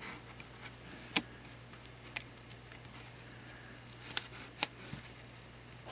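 A few faint, sharp clicks and ticks of hands working a rubber band tight around a carved wooden slingshot fork, the loudest about a second in, over a steady low hum.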